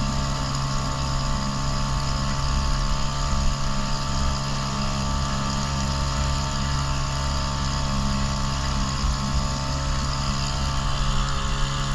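Motorboat engine running steadily at a constant speed, over a steady rushing hiss.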